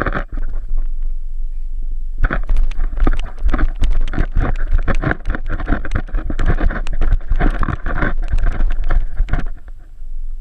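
A vizsla biting and crunching a raw carrot right against the GoPro, heard as a run of sharp cracking chews: a few at the start, then a dense stretch from about two seconds in that thins out near the end. A steady low rumble runs underneath.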